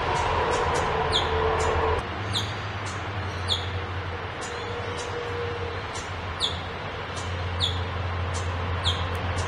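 A bird giving a short, high, falling chirp about once a second over a steady low rumble of road traffic. The rumble drops a little about two seconds in.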